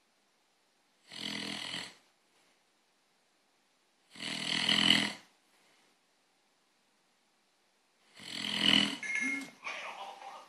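Snoring: three loud snores, each about a second long, coming every three to four seconds with silence between them. The last snore is the loudest and longest, and it breaks up into a rougher rattle near the end.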